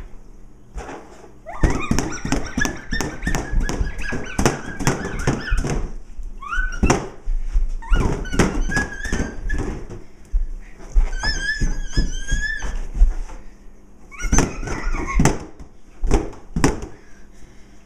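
Rubber balloon squeaking and squealing as it is handled, in several bursts of rapid squeaks with wavering high-pitched squeals between short pauses.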